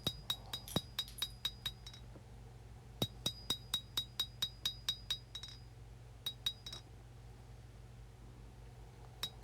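Light hammer blows on a forged 1095 high-carbon steel knife blade lying on an anvil, about four a second, each with a bright ringing note, in short runs with pauses between. These are the final light blows to straighten the blade and dress out the hammer marks.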